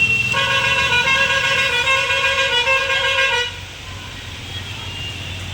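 A vehicle horn blares continuously for about three seconds, then cuts off, leaving a low background rumble.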